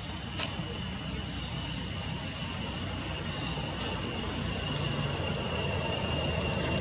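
Outdoor ambience among trees: a steady high-pitched drone, short falling chirps of small birds about every second, and a low rumble underneath. A single sharp click comes about half a second in.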